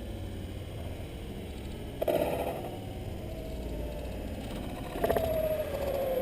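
Electric ducted-fan whine of a 70mm EDF foam RC jet, faint over a low wind rumble, with brief crackles about two seconds in and again near five seconds in; after the second, the whine slowly falls in pitch.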